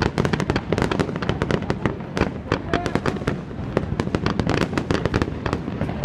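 Fireworks going off in a rapid, unbroken stream of sharp bangs and crackles, many a second.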